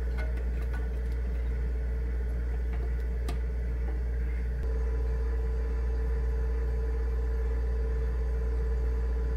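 Steady low hum with a faint whining tone that grows a little stronger about halfway through, and a few light clicks from an electric stove's control knob being turned, in the first second and again about three seconds in.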